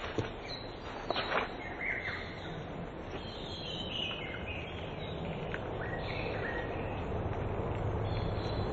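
Small birds chirping in short, repeated calls over steady outdoor background noise, with a few sharp clicks in the first second and a half. A low rumble grows louder near the end.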